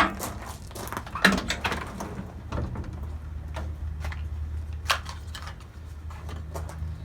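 Scattered clicks, knocks and light rustling from handling small parts and tools, the sharpest knock about a second in, over a low steady hum.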